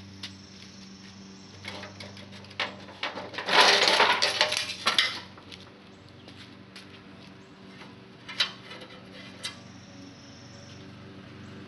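Sheet-metal heater parts clattering and clinking as they are handled, with a dense burst of rattling about three and a half seconds in that lasts over a second, and single clinks before and after. A steady low hum runs underneath.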